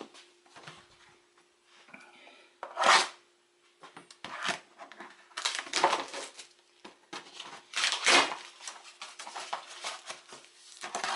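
Engine parts being handled: irregular metallic clatter and rustling, with the loudest clanks about three and eight seconds in. A faint steady hum runs underneath.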